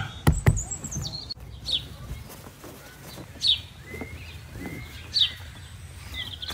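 Birds chirping: three short, bright, falling calls about every second and a half, and a quick trill near the end. Two sharp clicks come about half a second in.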